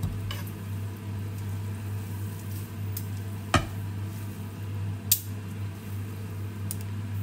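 Pancit canton noodles being tossed with metal tongs in a frying pan, with soft squishing, faint sizzling and three sharp clacks of the tongs against the pan. A steady low hum runs underneath.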